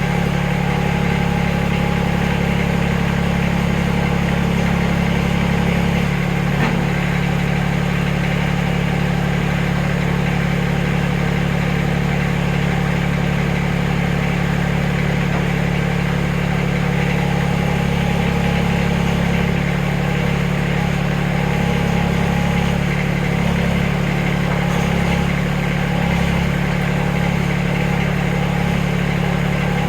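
Backhoe engine running steadily, its tone shifting slightly about six seconds in and again unevenly in the last third.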